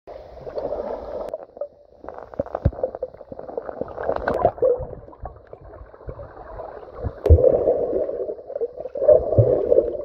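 Muffled river water sloshing and gurgling as picked up by a submerged camera, with scattered knocks and a few sharp clicks.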